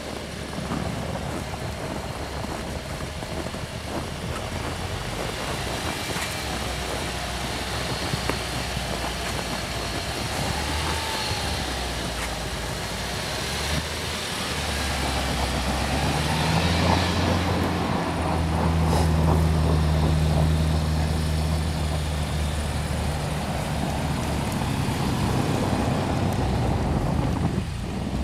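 UAZ Patriot SUV engine working under load as the vehicle ploughs through deep snow. The engine note grows louder and steadier from about halfway through.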